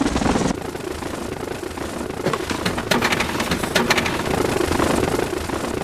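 A small motor running steadily, with rattling and clicking over it.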